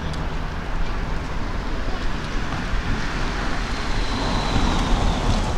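A minivan driving past close by on the road, its tyre and engine noise swelling to a peak about four to five seconds in.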